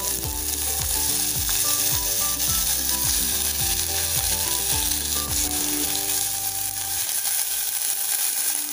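Chopped mixed vegetables sizzling in hot olive oil in a steel pot as they are added a few at a time: a steady frying hiss.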